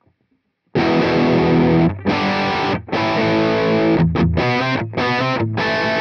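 PRS SE Custom 22 semi-hollow electric guitar played through the Sonicake Matribox II Pro's JP Dist model, an emulation of the Boss DS-1 distortion pedal, with gain, tone and volume at their midpoints, into a Celestion cabinet IR. Distorted chords start a little under a second in and ring with short breaks between them, with quick choppy stabs around the four-second mark.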